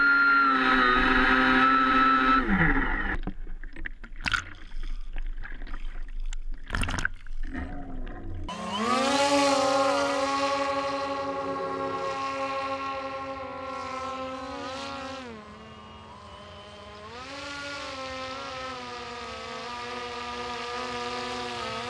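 Twin electric motors and propellers of a differential-thrust RC airboat running: a pitched whine with overtones. A few seconds in it drops out for several seconds, leaving only a few sharp clicks, then comes back, falling in pitch and loudness for a couple of seconds past the middle before rising again.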